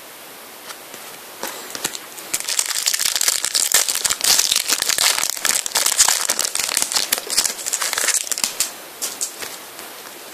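Foil wrapper of a Panini FIFA 365 trading-card pack crinkling as it is torn open: a dense run of crackles lasting about six seconds, tailing off into a few lighter rustles as the cards come out.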